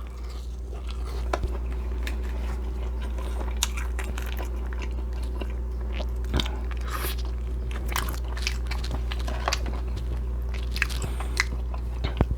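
Close-miked eating: a person biting and chewing food, with many small crisp clicks and crackles scattered irregularly, over a steady low hum.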